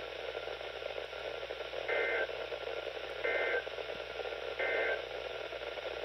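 Static hiss from a Midland NOAA weather radio's speaker, broken by three short two-tone data bursts about 1.3 s apart: the SAME end-of-message code that closes a Severe Thunderstorm Warning broadcast.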